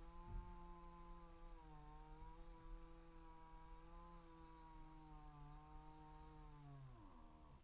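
Small two-stroke chainsaw engine running at a steady idle, then switched off near the end, its pitch dropping quickly as it winds down and stops.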